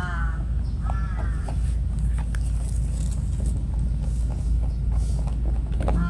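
Wild rabbit crunching dry food pellets: a quick, irregular run of sharp crisp crunches and clicks over a steady low rumble. A bird calls twice near the start.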